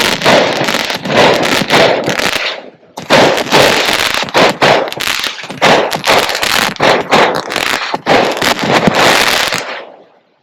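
Fireworks going off in long runs of rapid crackling bangs, with a brief pause about two and a half seconds in, and dying away near the end.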